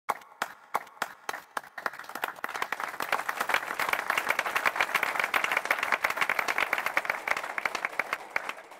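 A small crowd applauding: a few lone claps at first, then more people join in and the clapping thickens into steady applause that thins out near the end.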